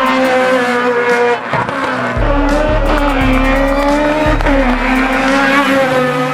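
Naturally aspirated 1.6-litre Honda Civic EG race car engine running at high revs, its pitch rising and falling, mixed with music carrying a stepped bass line.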